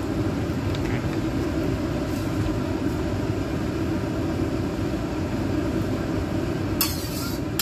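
Steady low rush of gas stove burners running under a wok of heating oil and a steamer pot. Near the end, a brief clatter of metal clinks.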